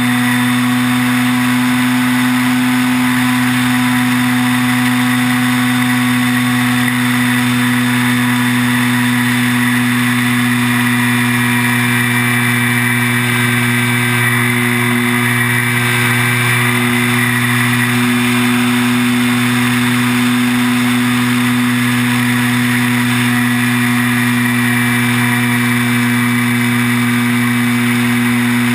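Electric motor and propeller of an E-flite T-34 Mentor RC plane in flight, heard from a camera mounted on the plane: a steady drone with a high whine above it over a rush of air, wavering slightly in pitch around the middle.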